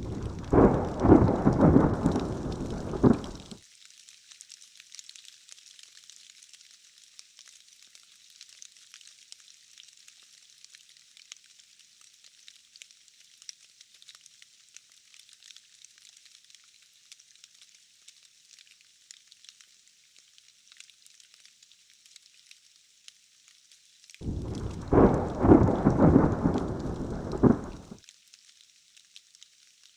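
Steady rain hiss with two loud rumbles of thunder, one right at the start and another about 24 seconds in, each lasting around three and a half seconds and cutting off abruptly.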